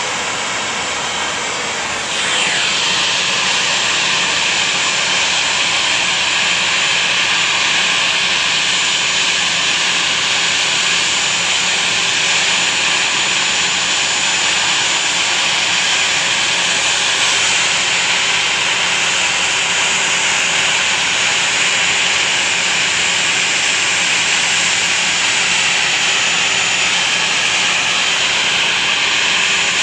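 Jet engines of a regional airliner running on the ramp: a steady rushing noise with several high-pitched whines, which gets louder about two seconds in and then holds.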